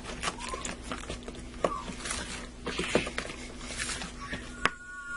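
Silicone spatula stirring and scraping thick mayonnaise dressing around a plastic mixing bowl: irregular soft scrapes and taps, with one sharp click near the end.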